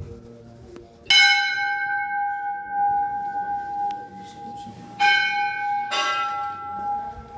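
A large metal bell, as rung at a Hindu temple, is struck three times: once about a second in, then twice more about a second apart near the five-second mark. Each strike rings on in a long, steady hum.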